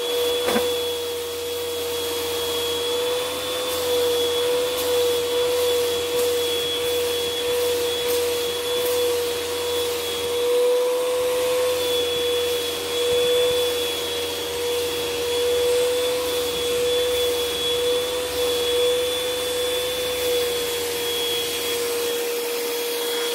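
Vacuum cleaner running steadily, its wand held against a cat's fur to suck up loose hair and fleas; the motor gives a steady whine over the rush of air. A brief click about half a second in.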